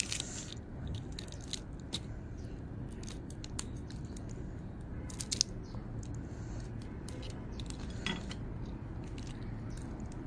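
Fingers peeling cooked crayfish, the shells cracking and crackling in a scatter of small sharp clicks, over a steady low background hum.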